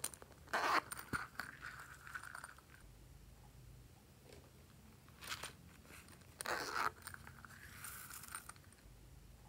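Small plastic shaker containers clicked open and handled, then shaken so sprinkles and glitter fall onto a bowl of slime, in several short rattling bursts with the loudest about half a second in and about six and a half seconds in.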